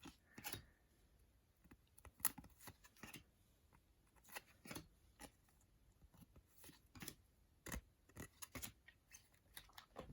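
Trading cards being handled and flipped through by hand: faint, irregular clicks and slides, a few slightly sharper than the rest.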